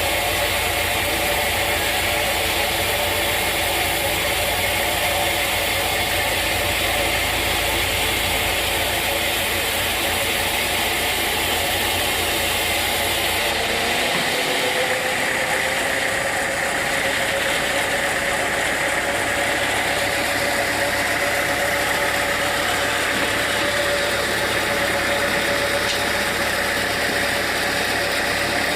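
Sawmill machinery running steadily. About halfway through the deep rumble drops out, and a steady mid-pitched tone rises a little and holds.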